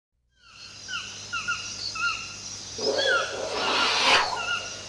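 A run of short, repeated animal calls, each a quick hook in pitch, several a second, fading in from silence. About three seconds in, a noisy rushing swell rises over them for a little over a second.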